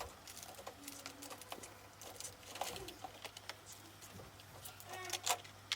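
Small objects being handled and set down: scattered light clicks and taps at irregular intervals, over a low steady hum.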